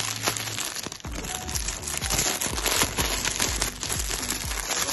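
Clear plastic bag crinkling and rustling as it is handled and opened, in quick irregular crackles, over background music with a steady low beat.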